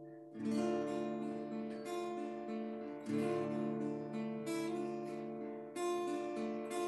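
Acoustic guitar strumming a slow run of chords, each new chord struck about every one to two seconds: the instrumental intro to a worship song.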